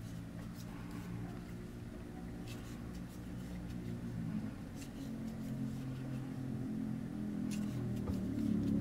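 Low hum of a running engine that grows louder toward the end, with a few faint light clicks.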